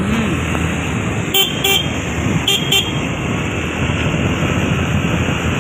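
Road noise and wind from a moving two-wheeler, with a horn beeping twice in quick succession about a second and a half in, then twice again a second later.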